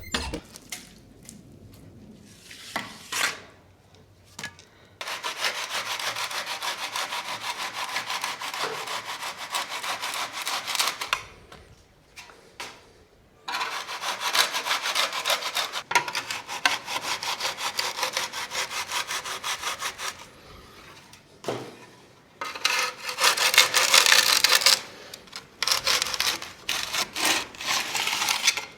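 A hand tool worked in rapid back-and-forth scraping strokes, in runs of several seconds with short pauses between them; the run a little past the middle is the loudest.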